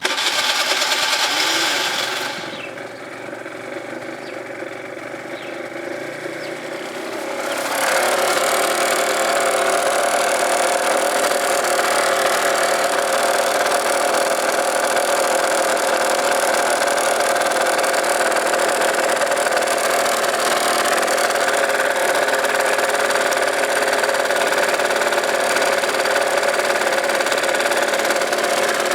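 Gilera DNA 50 scooter's 50 cc two-stroke engine catching and running after a winter non-start. It is loud for about two seconds, drops to a lower idle, and then about eight seconds in rises to a higher, steady speed that it holds.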